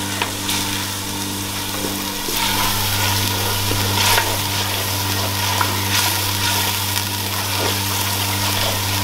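Onions and green chilli paste sizzling in oil in a clay handi while a wooden spoon stirs and scrapes against the pot, with a steady low hum underneath; the mixture is being browned lightly for a curry masala.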